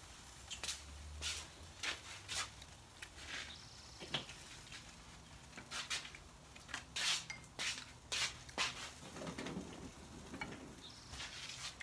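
Scattered light clicks and clinks of dishes and utensils being handled at a table, irregular and a few each second.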